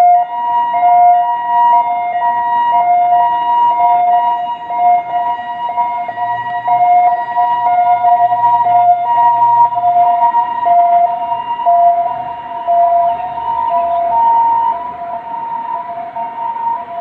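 Ambulance siren sounding a two-tone hi-lo pattern, switching between a lower and a higher pitch about every half second.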